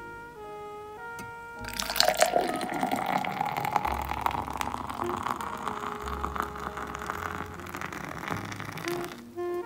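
Heineken lager poured from a can into a tall glass: the splashing, foaming pour starts about two seconds in and runs until near the end. A faint tone climbs in pitch as the glass fills.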